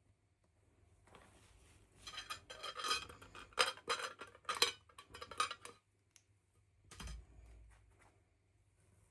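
Small hard plastic toy pieces clicking and clinking together as they are handled, in a run of about four seconds, followed by a single soft thump.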